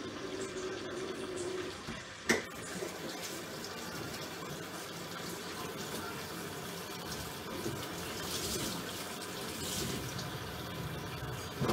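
Kitchen tap running into a sink, with a single sharp clunk about two seconds in.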